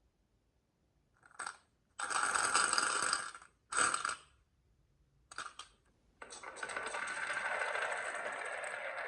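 Marbles rolling and clacking down a HABA wooden marble run: a few short rattling runs, then a steady continuous roll from about six seconds in.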